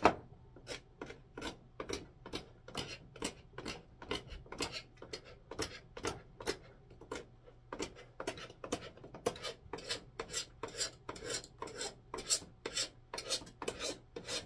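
Four-in-hand rasp filing the wooden handle of a Disston handsaw in steady back-and-forth strokes, about three a second.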